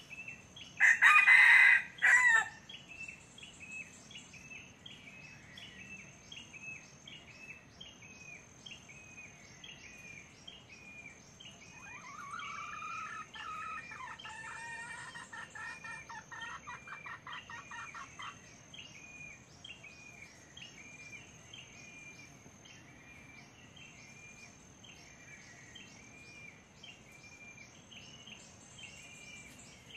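Red junglefowl rooster giving one loud, short, clipped crow about a second in, in two parts with a brief break. A quieter, pulsing call follows in the middle for about six seconds, over a background of regular chirping and a steady high-pitched buzz.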